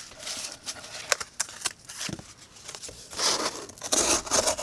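A folding knife's blade piercing and slicing cardboard: scratchy cutting with several sharp ticks, then two longer rasping cuts near the end.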